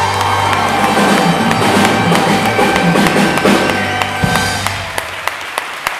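Live band holding the final chord of a song, cutting off about four seconds in, then audience applause starting up.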